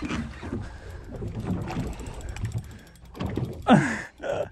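Spinning reel clicking rapidly under a hard fish fight, a giant trevally pulling against the loaded rod and drag, over wind and boat noise; a man's voice sounds briefly near the end.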